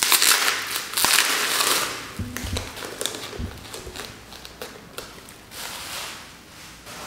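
Plastic bubble wrap crinkling and rustling loudly as a box is pulled out of it, for about two seconds. It then dies down to scattered small crackles and taps, with a couple of soft thuds as the cardboard box is set on the wooden table.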